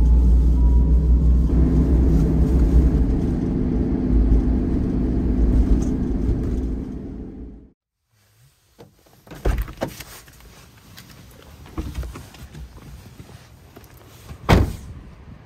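Kei car driving, a steady low engine and road rumble, which stops abruptly a little after halfway. A quieter stretch follows with a few sharp knocks, the loudest near the end.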